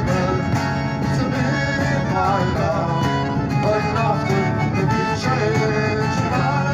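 Live acoustic folk band playing an instrumental passage: piano accordion melody over strummed acoustic guitar and a hand-beaten frame drum, amplified through small stage speakers.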